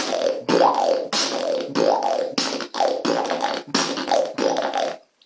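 Beatboxer's lip roll: a run of short, loud lip-rolled notes, about two a second, each with a pitch that rises then falls. The lips are twisted to one side and the face is tightened to make the roll louder and sharper. The notes stop just before the end.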